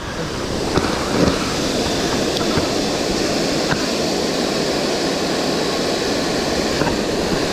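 Steady rush of water pouring over a low concrete dam spillway and churning in the whitewater below.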